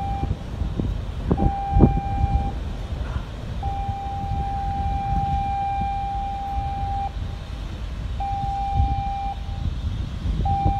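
A ship's horn sounding a series of blasts on one steady high note: a short blast, a long one of about three and a half seconds, then two more short ones. A constant low rumble runs underneath.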